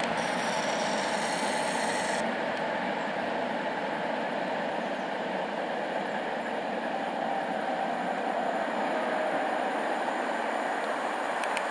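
Freight train of open wagons hauled by a Pesa Gamma class 111Ed electric locomotive rolling along the track, a steady rumble of wheels on rails.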